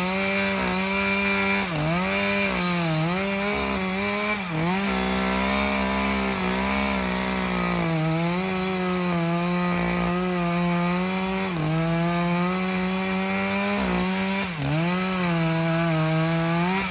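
Chainsaw running at high revs while cutting wood. Its engine pitch dips briefly several times as the chain bogs down in the cut, then drops away at the end as the throttle is released.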